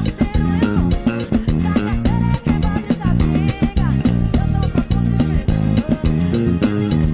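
A live band's music heard through a bassist's in-ear monitor mix, with the electric bass loud and upfront over the guitar and the rest of the band.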